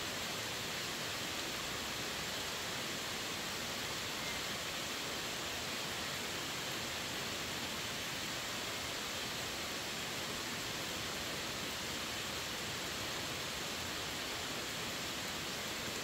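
Heavy rain falling steadily on dense leafy woods and wet pavement: an even, unbroken hiss.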